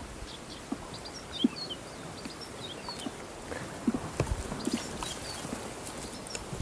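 Small birds chirping repeatedly in the reeds, with a few soft knocks and thumps from handling in an inflatable boat, the loudest about a second and a half in and again around four seconds in.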